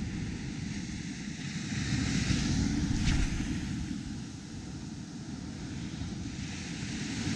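Wind buffeting the microphone over surf washing up on a sandy beach, the wash of the waves swelling a couple of seconds in.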